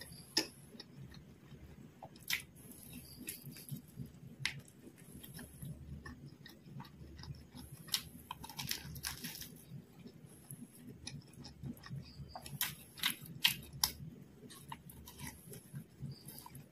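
Close chewing and biting of fried quail meat eaten by hand, with wet mouth smacks and sharp clicks scattered through, most frequent near the end.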